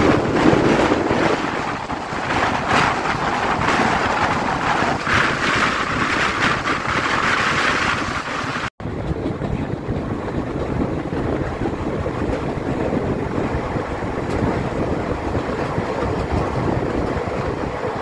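Wind buffeting the microphone out of a moving passenger train, over the noise of the train running on the track. There is a brief dropout at a cut about nine seconds in, after which the noise is duller and steadier.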